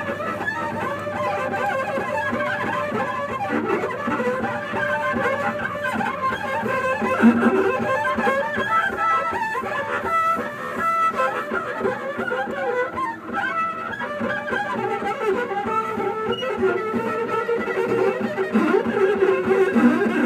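Solo double bass bowed, with held, shifting notes rich in high overtones; lower notes come in louder near the end.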